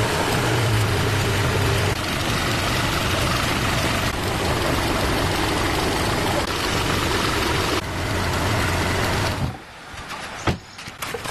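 Car engine running steadily, then cutting off about nine and a half seconds in, followed by a few light metallic clinks and knocks.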